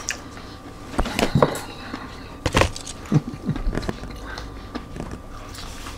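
Crunchy bites and chewing of Cheetos-coated boneless chicken wings: a few sharp crunches, loudest about a second in and again about two and a half seconds in, with softer chewing between.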